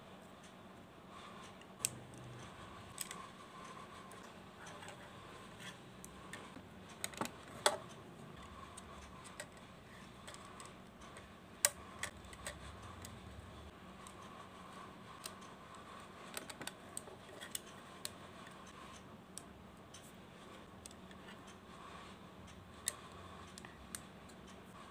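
Plastic Lego bricks clicking and snapping as pieces are handled and pressed together: scattered sharp clicks, a few louder snaps, over a faint steady hum.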